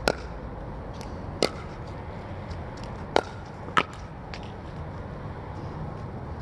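Pickleball rally: four sharp pops of paddles hitting the hollow plastic ball, the last two about half a second apart, with a few fainter ticks in between.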